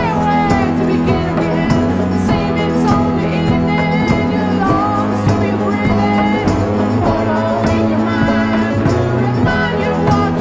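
Background music: a song with a sung melody over held instrumental chords at a steady level.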